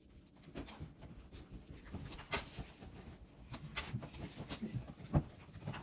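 Scattered light knocks and clicks at an uneven pace, with one sharper knock about five seconds in.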